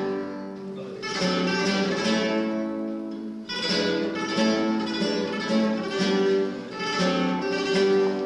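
Solo flamenco guitar: plucked and strummed chords that ring and fade, with sharp new chord attacks about a second in and again around three and a half seconds, then a run of quicker notes.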